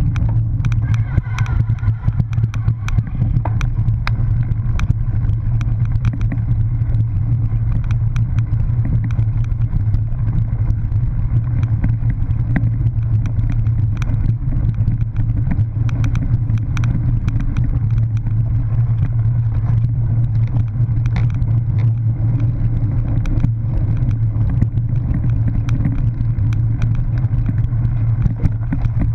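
Steady low rumble of a cyclocross bike riding fast over bumpy dirt and grass, heard on a camera carried by the rider. Frequent sharp clicks and rattles come from the bike jolting over the rough trail.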